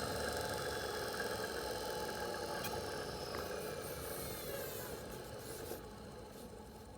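Brushed electric motor from a 1943 gun director, fitted with new carbon brushes, coasting down after being switched off: its whine slowly falls in pitch and fades away. Two faint clicks near the middle.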